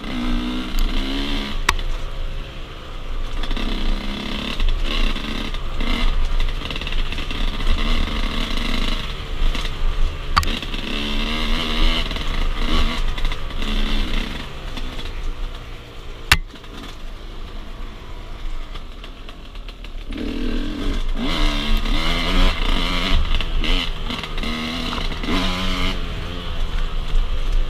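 Enduro motorcycle engine revving up and dropping back again and again as the rider works the throttle off-road, with a quieter stretch past the middle and a single sharp knock about sixteen seconds in.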